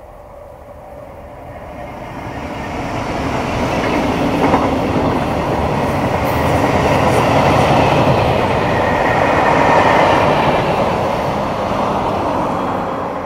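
Freight train headed by a Class 66 diesel locomotive running past with a long rake of covered wagons, its wheels rumbling and clattering over the rails. The sound builds over the first few seconds as the train arrives, holds loud while the wagons roll by, and starts to fade near the end as the last wagons pass.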